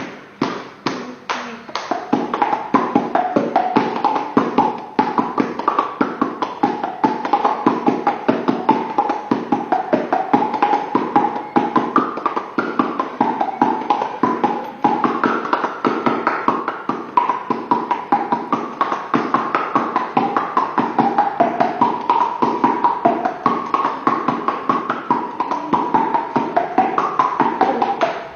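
A tune played with fast, even taps, each tap pitched so that the string of taps traces a melody that rises and falls.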